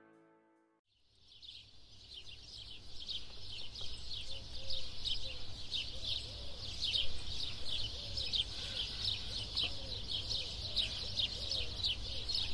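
Outdoor wildlife ambience: after near silence, a dense chorus of high, rapid chirping fades in about a second in and carries on, over a low steady rumble.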